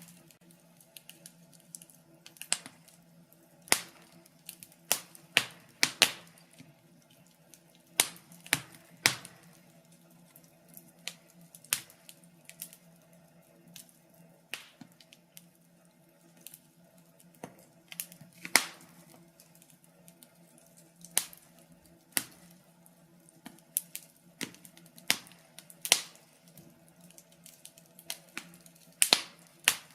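Wood fire in a fireplace crackling: irregular sharp pops and snaps, some louder than others, over a faint steady low hum.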